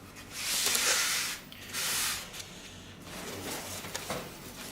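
Rustling and rubbing handling noise as car stereo parts and packaging are moved, with two louder swishes in the first two seconds and softer rustling after.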